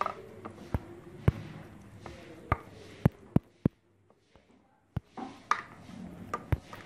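Metal spoon stirring a wet spice paste in a plastic bowl, with irregular sharp taps and clicks as the spoon knocks and scrapes the bowl. It goes almost silent for about a second midway, then the taps resume.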